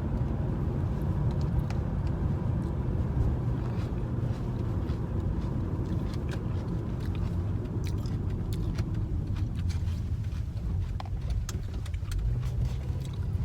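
Steady low rumble of a moving road vehicle heard from inside, with scattered light ticks and rattles.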